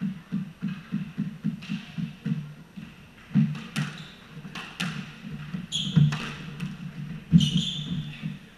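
Squash ball bounced on the court floor several times before the serve, then a rally: sharp cracks of the racket striking the ball and the ball hitting the walls, with a couple of shoe squeaks on the wooden floor.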